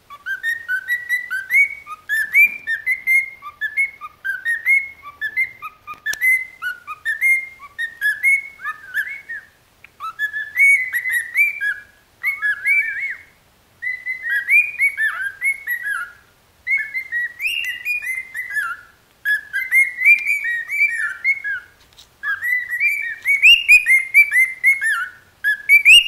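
Grey cockatiel whistling a long run of quick chirpy notes, several a second, sliding up and down in pitch, grouped in phrases a few seconds long with short pauses between them.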